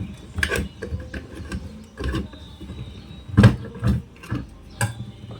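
Metal parts of an electric fan motor being handled and knocked during disassembly: about five irregular knocks and clinks, the loudest a little past three seconds in.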